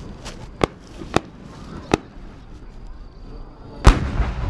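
Aerial firework shells: several sharp cracks, then a much louder bang about four seconds in followed by a long, low rumbling echo, typical of a large 10-go chrysanthemum shell bursting overhead.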